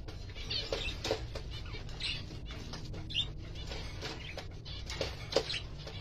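Budgerigars chattering: scattered short chirps and clicks, with a sharper chirp about five seconds in, over a steady low hum.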